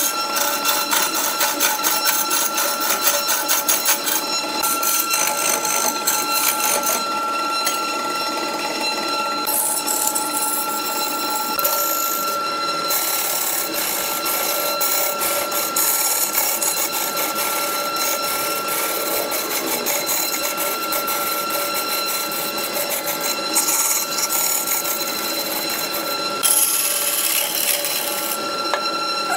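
Wood lathe running with a steady whine while a hand-held turning tool cuts a large spinning wood blank, with rapid rough chatter for the first few seconds and bursts of hissing as the tool takes off shavings.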